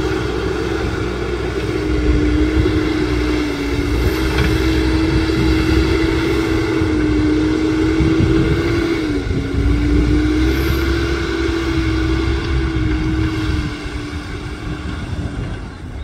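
Escorts Digmax II backhoe loader's diesel engine running as the machine drives across the riverbed, with a steady whining tone that dips briefly about nine seconds in. It grows quieter near the end as the machine moves away.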